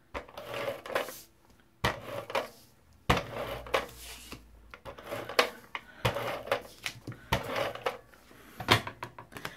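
Scotch Advanced Tape Glider adhesive gun run along a sheet of paper to lay down tape, with a series of sharp plastic clicks and clatters and rasping stretches between them.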